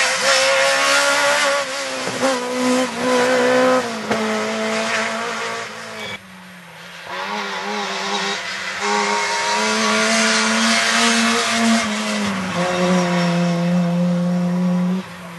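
Rally cars at speed, their engines held at high revs with the pitch jumping in steps. The sound drops off briefly about six seconds in, then a second car runs at full throttle.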